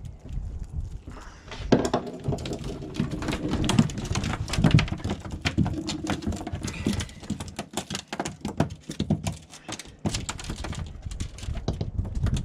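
Freshly caught mackerel flapping on a fibreglass boat deck, a fast, irregular patter of tail slaps and knocks.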